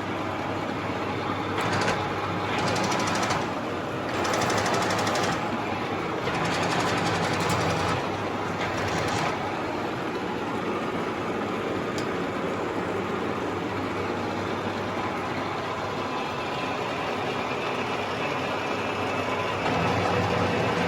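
Huron MU6 milling machine running, a steady mechanical hum. Several louder, brighter passages of a second or two each come in the first nine seconds, and the tone changes slightly near the end.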